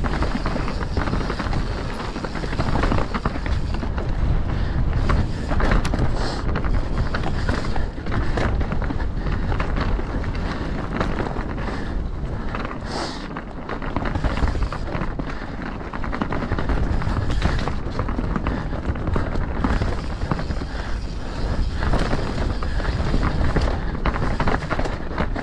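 Mountain bike ridden fast over rough trail: a steady rush of wind on the microphone with frequent rattles and knocks from the bike over the ground.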